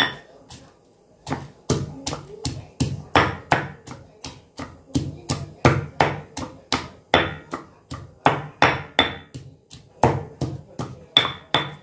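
Stone pestle pounding garlic and chillies in a stone mortar: after one lone strike, steady strokes begin about a second in at about three a second, some with a short high ring.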